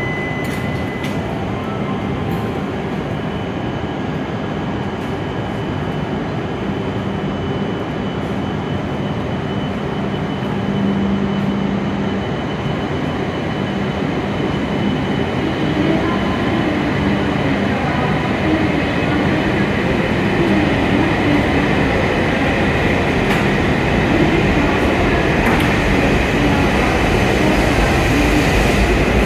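E7 series Shinkansen train pulling out and gathering speed. A steady hum gives way to wavering motor tones from about halfway, and the noise grows louder as it speeds up.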